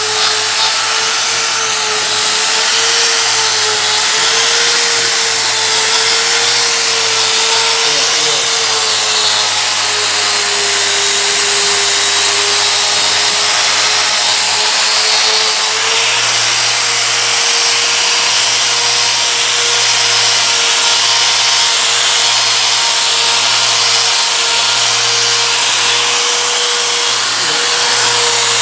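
Electric angle grinder running steadily with a 200-grit resin diamond dry polishing pad, dry-grinding a marble floor. Its motor whine wavers slightly in pitch, dipping for a few seconds about ten seconds in, over a continuous grinding hiss.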